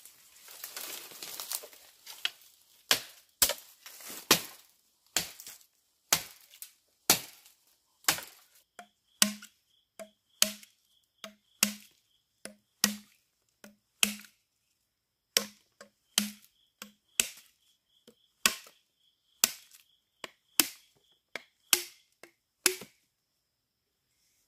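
Knife chopping into a green bamboo tube: a long run of sharp knocks, roughly one every half second to a second, many with a short hollow ring from the bamboo, with a brief pause about halfway through.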